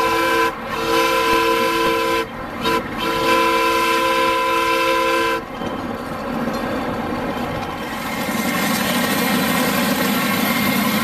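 Chime whistle of a 7½-inch gauge live-steam model locomotive blowing two-note blasts in a long, long, short, long pattern, the grade-crossing signal. After that comes the steady running noise of the moving train.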